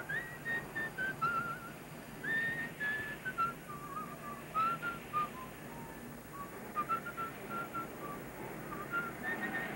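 A high single-line tune: short held notes stepping up and down, some with a slight waver, over a faint low background.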